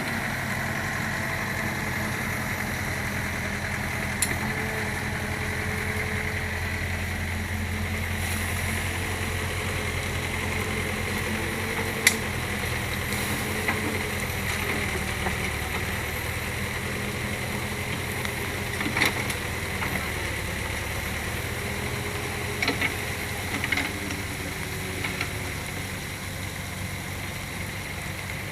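Volvo 55W excavator's diesel engine running steadily while working, rising in level a couple of times as it takes load. A few short sharp clanks stand out over it.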